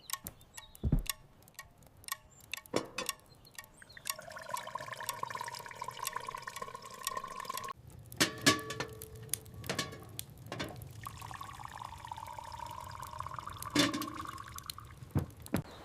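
Liquid being poured into a cup in two pours, with light clinks of crockery before and between them.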